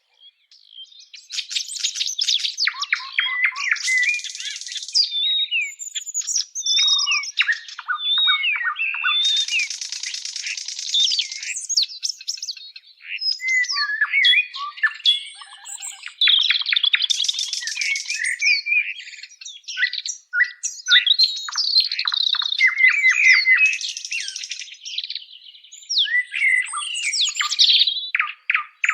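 Songbirds singing without a break, a busy mix of quick chirps, trills and whistled glides.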